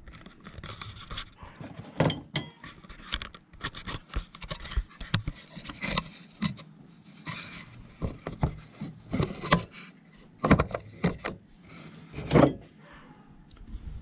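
Steel jack handle extension rods of a Ford F-150 jack kit being handled, slid together and set down on a plastic bed liner: irregular metal clicks, clinks and scrapes, with a few louder knocks, as the spring clips of the rods are pushed in and lock.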